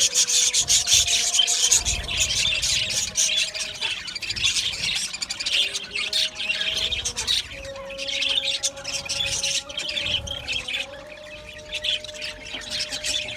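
A colony of budgerigars chattering non-stop, many birds chirping and squawking over one another in a dense, unbroken warble.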